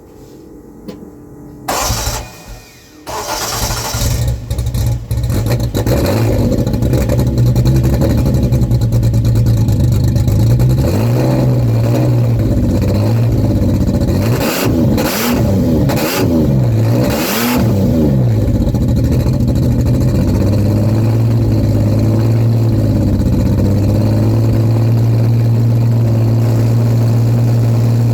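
A car engine cranks and catches about two seconds in, then runs. It is revved up and down several times in the middle, with a few short sharp sounds among the revs, then settles to a steady idle.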